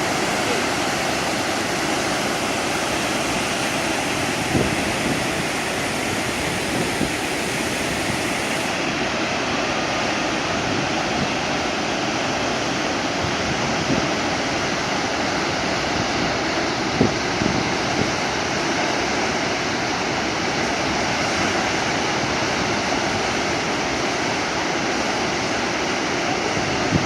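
Waterfall pouring: a steady, dense rush of falling water, with a couple of brief bumps about a third of the way in and again past the middle.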